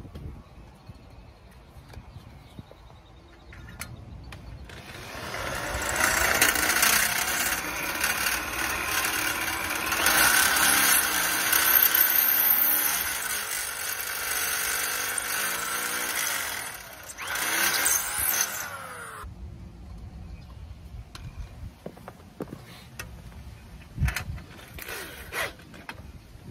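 Power drill running in a long stretch of about fourteen seconds, its motor speed rising and falling, then stopping suddenly. A few light knocks follow.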